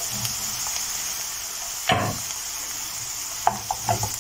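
Diced potatoes and onions frying in oil and butter in a pan, with a steady sizzle. A utensil stirring them knocks sharply against the pan about two seconds in and clicks a few times near the end.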